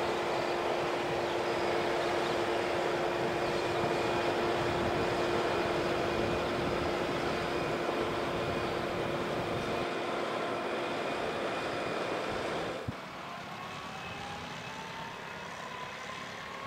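Farm tractor running steadily as it pulls a slurry tanker with its injector tines working through the soil, with a steady whine over the engine noise. About 13 s in the sound cuts to a quieter stretch where a tone rises slowly.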